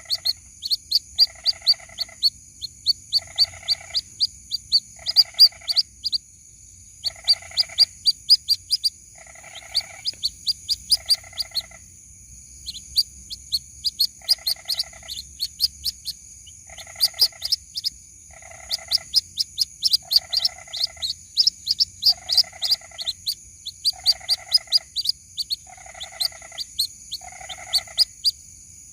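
White-breasted waterhen chick calls, as used to lure the adults: rapid, high, falling cheeps several times a second, interleaved with a lower buzzy call repeated about once a second. A steady high-pitched whine runs underneath.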